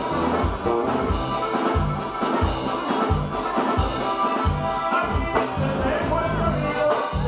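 Live norteño band music: accordion over drum kit and bass, with a steady beat about every two-thirds of a second.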